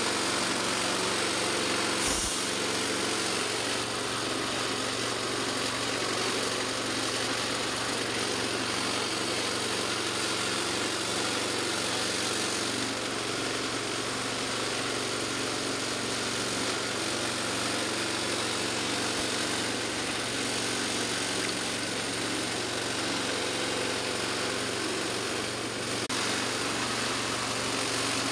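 Powder grinding mill for dry leaves running steadily, with a constant low hum under an even rushing noise.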